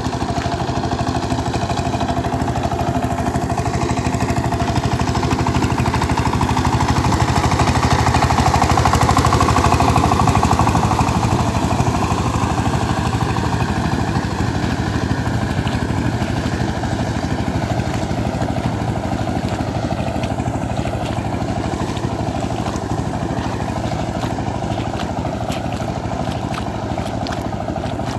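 Power tiller engine running steadily under load as the two-wheel tractor churns through a flooded paddy field, growing louder as it comes close about ten seconds in and then fading as it moves away.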